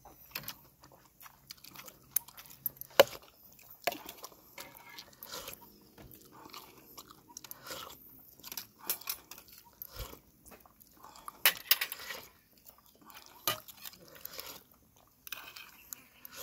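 Close-up eating sounds: chewing and biting, with scattered sharp clicks of spoons against plates, the sharpest about three seconds in.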